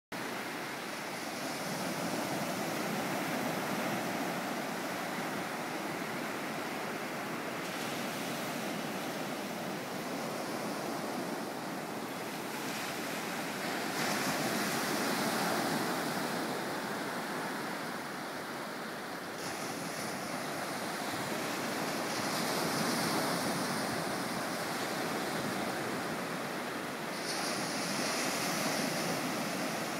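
Small surf breaking and washing up a sandy beach: a steady rush that swells louder and eases every several seconds as each wave comes in.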